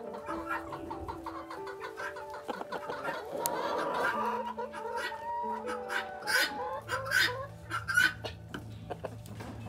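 A flock of Black Copper Marans chickens clucking, in many short calls, over soft background music with long held notes.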